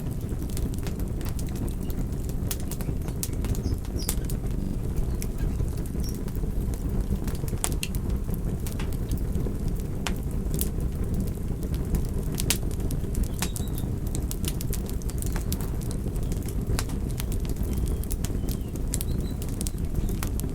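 Wood fire burning: flames fluttering with a steady low rush, with light crackling as scattered sharp pops and snaps, a few every second.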